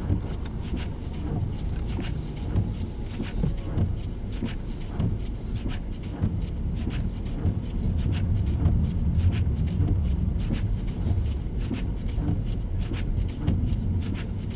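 Low steady rumble of an idling car, with scattered light clicks.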